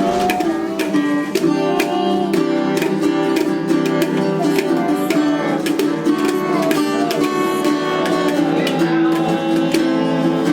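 A song played on a plucked string instrument, running on without a break.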